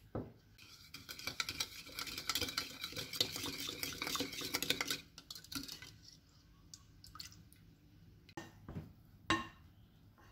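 A wooden spoon stirring liquid in a glass bowl, with rapid scraping clinks for about four seconds as sugar and salt are dissolved into it. A few separate knocks come near the end.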